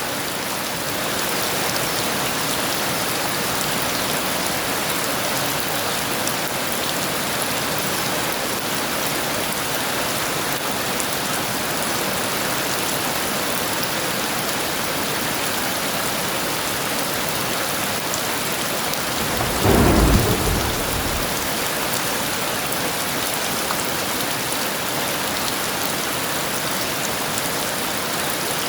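Heavy rain pouring steadily, with one short clap of thunder about two-thirds of the way through.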